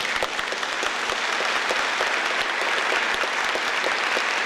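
Congregation applauding, many hands clapping in a dense, steady patter.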